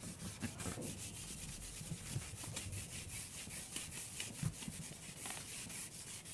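Writing by hand: faint, quick scratching strokes on a writing surface, coming in irregular runs.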